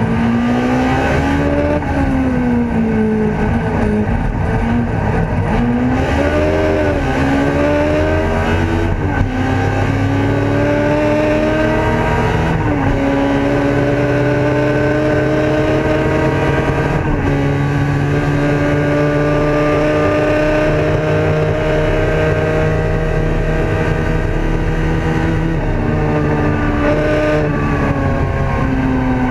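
Ford Escort race car's engine heard from inside the cabin, pulling hard through the gears: the pitch climbs steadily, then drops sharply at each gear change. There is a quick rise and fall in revs about seven seconds in, and the revs fall away near the end.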